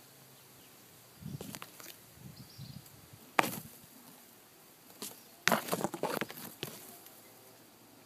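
Leaves and twigs rustling and crackling in short bursts: three clusters, the sharpest crack about three and a half seconds in, and a longer stretch of crackling near the middle-end.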